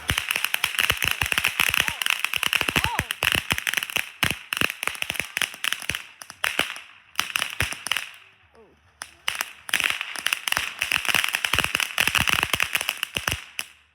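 Firework crackling: a dense run of rapid sharp pops and crackles for about seven seconds, a short lull, then a second run of crackling that stops just before the end.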